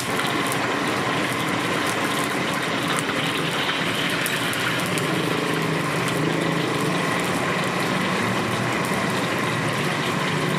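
Hot oil in a steel wok sizzling and crackling as shrimp deep-fry in it, over the steady roar of a gas wok burner.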